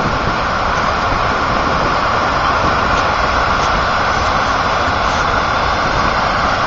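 Floodwater pouring over a dam spillway in a loud, steady rush that does not let up.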